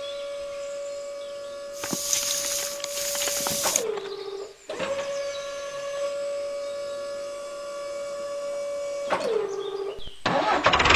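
Small electric motor of a miniature tipper trailer's lifting mechanism whining at a steady pitch. It winds down and stops a little under four seconds in, then starts again and runs until it winds down about nine seconds in. A louder hissing rush runs over the motor from about two to four seconds in.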